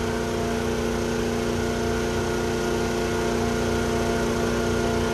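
A motor running steadily, holding one even pitch with no change.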